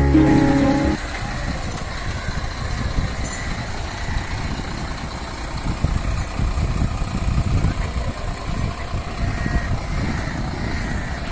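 Background music cuts off about a second in. After it comes a steady, uneven low rumble of lorry engines idling.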